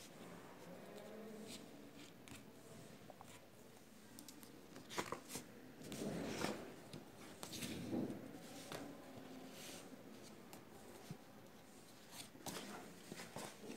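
Faint rustling and scraping of stiff coloured card and paper being handled, with small clicks, as a ribbon bow is untied and card flaps are folded open. The rustles are loudest in a few bursts around the middle.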